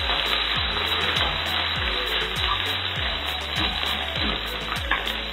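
Scrambled eggs sizzling in a hot nonstick pan as a spatula stirs and breaks them up, over background music with a steady beat.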